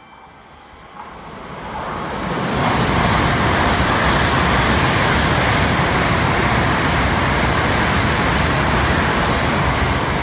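Tokaido Shinkansen bullet train passing through a station without stopping, at reduced speed under a 200 km/h limit. The steady rushing wheel and air noise builds over the first couple of seconds as the train nears, then stays loud as the cars go by.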